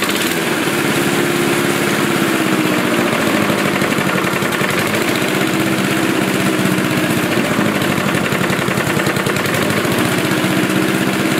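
Mountfield Emperor petrol lawnmower engine running steadily at a constant speed, its pitch wavering slightly now and then.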